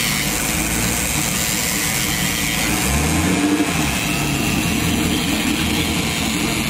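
Pleasurecraft Marine 6.0L ZR409 V8 inboard engine running at idle while warming up on a garden-hose flush water supply. Its revs rise briefly about three seconds in and settle back.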